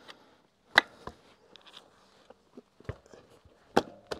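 A few sharp, separate metallic clicks and knocks from a motorcycle's rear wheel parts as the wheel is lined up and the axle pushed through the swingarm and hub. The loudest comes about a second in.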